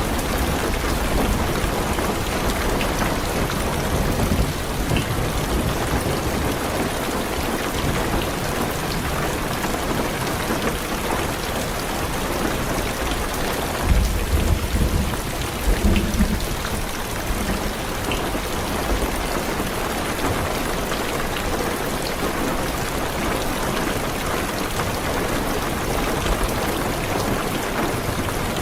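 Heavy rain falling steadily on a car's roof and windows, heard from inside the car, with low thunder rumbling in the background, loudest about halfway through.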